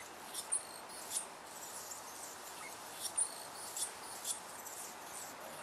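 Hummingbird giving short, very high-pitched chip notes, about eight of them at irregular intervals, over a steady faint hiss.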